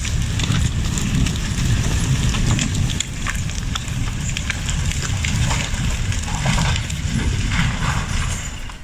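Heavy diesel engine of a logging vehicle running and labouring, a steady low rumble with scattered knocks and clatter over it.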